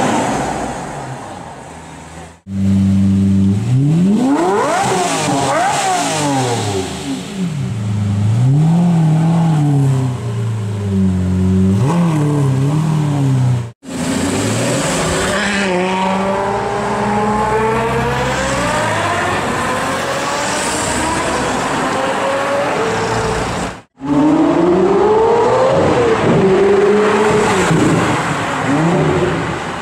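Supercar engines revving and accelerating across four short clips. First comes a fading engine, then repeated free revs rising and falling, then an acceleration whose pitch climbs in steps through the gears, and finally sharp rev blips. The audio cuts abruptly between clips three times.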